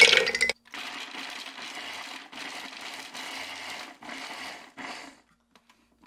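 Cranberries clattering in the plastic bowl of a food processor, a dry rattling that comes in a few stretches and then cuts off abruptly near the end.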